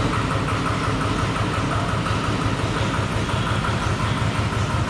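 Steady, loud drone of machinery running in a pig house, with a low hum and a higher whirring band.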